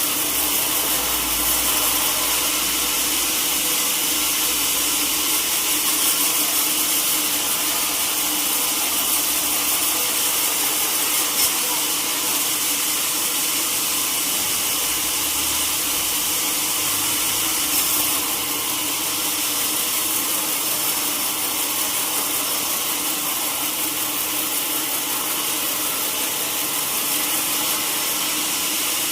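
Sawmill saw running steadily and cutting through teak wood, a continuous hissing machine noise with a steady hum under it.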